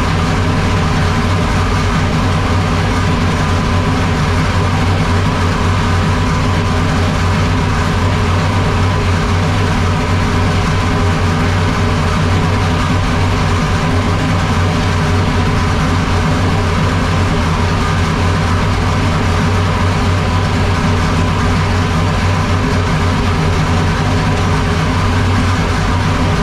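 Dodge R5P7 NASCAR small-block V8, carbureted and naturally aspirated, running loud and steady at a constant speed with no revving.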